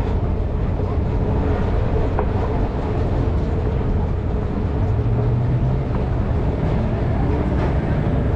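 Street traffic: a steady low vehicle engine hum over continuous road noise, with a few faint clicks.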